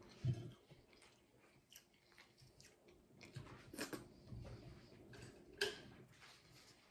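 A person chewing a mouthful of hamburger with the mouth closed: soft, wet chewing with scattered mouth clicks, a few sharper ones about four and five and a half seconds in.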